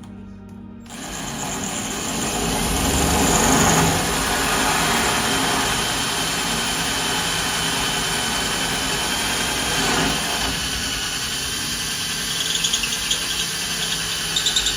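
Power drill running steadily with a 3/8-inch tile bit grinding through ceramic shower tile, hard going, with a scratchy high squeal near the end. It starts about a second in.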